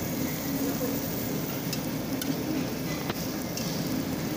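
Meat sizzling steadily on a tabletop Korean barbecue grill plate, with a few faint clicks of metal tongs against the grill.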